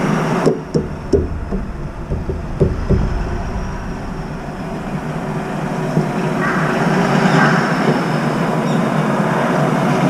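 Steady road traffic noise from the street below, with a few short knocks in the first three seconds.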